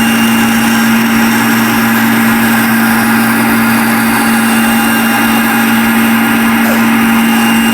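Table saw running at speed with a steady, unchanging hum.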